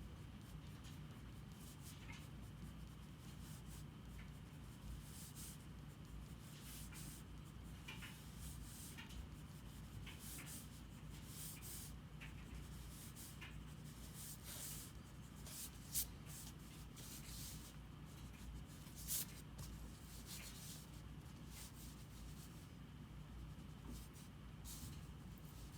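Drawing strokes scratching and rubbing on paper, short strokes coming in irregular runs over a faint steady low hum, with two sharper strokes near the middle.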